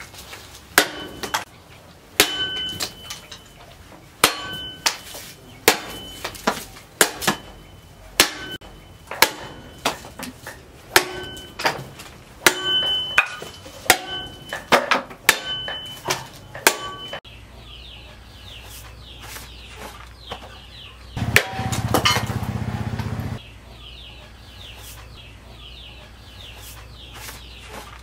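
A heavy forged knife of tractor disc-plough steel chopping bamboo and wood on a wooden block: a long run of sharp chops, each with a brief metallic ring from the blade. The chops stop after about seventeen seconds; a short louder rush of noise follows a few seconds later.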